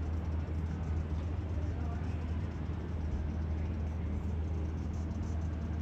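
Steady low rumble of harbour ambience, with faint voices in the distance.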